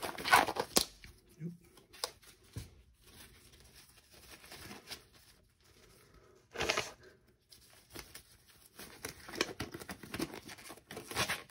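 Blue disposable gloves being pulled onto the hands: a few short bursts of rubbery rustling and stretching, the loudest about seven seconds in.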